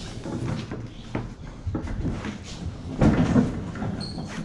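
Knocks and scraping as a refrigerator is pushed and shoved into place, with a louder clatter of bumps about three seconds in.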